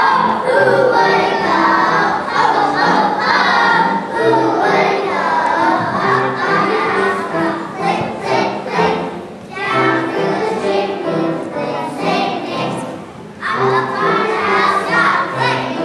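A young children's choir singing a song together over instrumental accompaniment with a steady beat.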